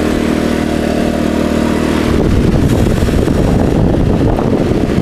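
DeWalt DXGNI20 four-stroke inverter generator running steadily. About two seconds in, the electric fan it powers starts up and adds the rush of moving air. The generator's sound does not change under this light 110 W load.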